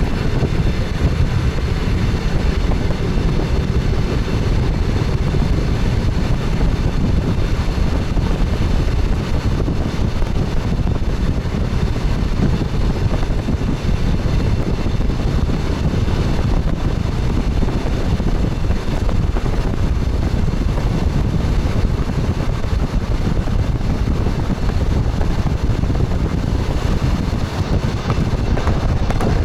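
Steady running rumble of an express train heard from inside its front cab, with wind noise over it.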